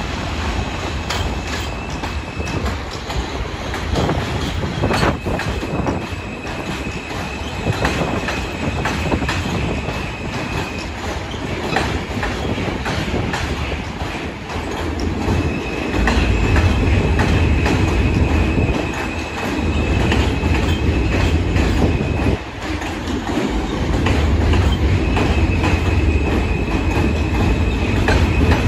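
R160-series subway train rolling along elevated steel track, its wheels rumbling and clacking over rail joints. A high wheel squeal comes and goes about four times, and the low rumble grows heavier from about halfway through as the cars pass close by.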